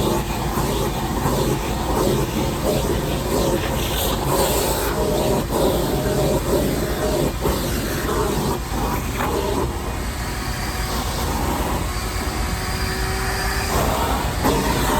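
Shop vac running steadily while vacuuming, with a few short knocks and rattles along the way.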